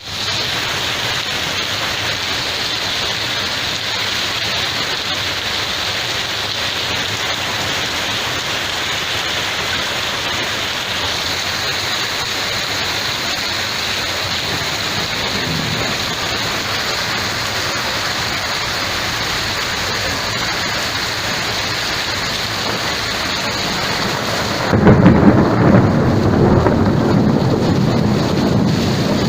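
Steady, even hiss of heavy rain. About 25 seconds in, a louder, deeper rumbling noise sets in abruptly and carries on to the end.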